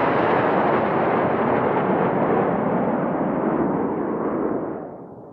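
Roar of a Patrouille Suisse formation of Northrop F-5E Tiger II jets passing overhead, slowly growing duller and then dropping away sharply near the end.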